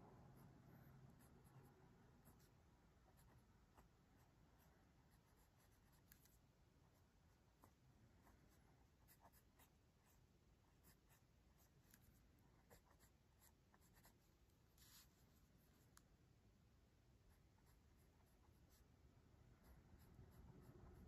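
Faint pencil scratching on paper in many short, irregular sketching strokes.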